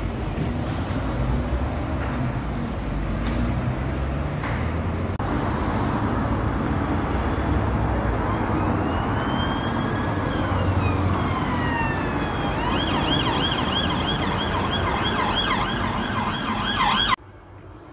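Emergency vehicle siren sounding in passing road traffic. It starts with a slow rising and falling wail about halfway in, then switches to a rapid yelp. The street noise and siren cut off suddenly near the end.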